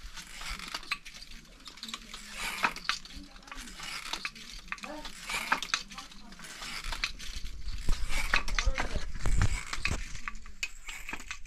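Wooden handloom being worked by a weaver: irregular wooden clacks and knocks from the beater, heddles and shuttle. A low rumble joins about seven seconds in.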